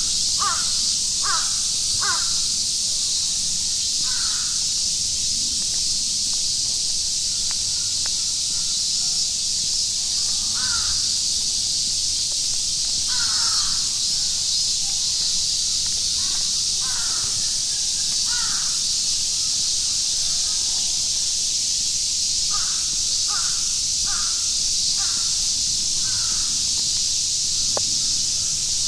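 Crows cawing, harsh calls in runs of three to five with single calls between, over a steady hiss of rain.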